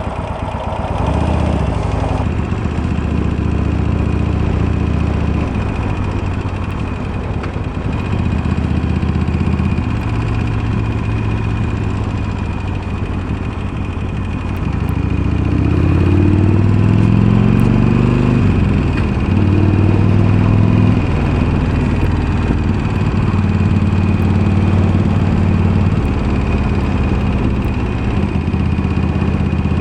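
Harley-Davidson Iron 1200's air-cooled V-twin running through Screamin' Eagle slip-on mufflers, its note rising under acceleration and dropping in steps as it changes gear.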